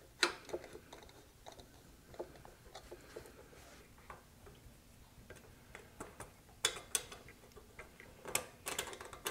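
Scattered small metallic clicks and taps of a long driver working the screws that hold a carburetor to a motorcycle cylinder head, with a short cluster of clicks near the end.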